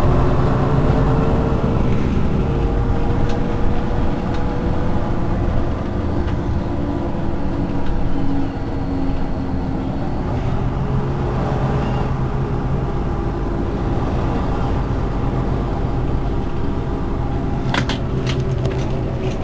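Iveco Urbanway 18 articulated city bus idling at a stop: a steady engine hum that dips slightly in level about eight seconds in. A few sharp clicks sound near the end.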